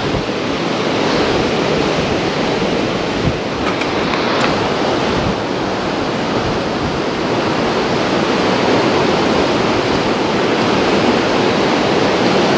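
Mountain creek rushing steadily over a small rocky cascade.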